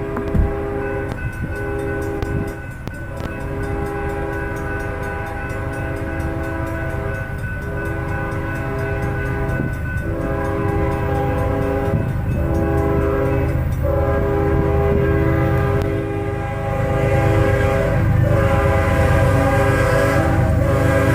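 Diesel locomotive's multi-chime air horn sounding a series of long blasts over the low rumble of the locomotive and train. The rumble grows louder near the end as the train draws closer.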